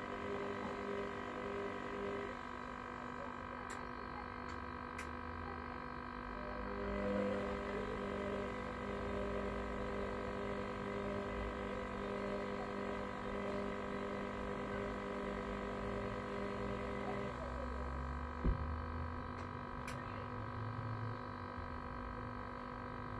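Hoover washer-dryer running with a steady motor whine and a low rumble from the turning drum. A lower hum drops out and comes back, and there is a single knock about 18 seconds in.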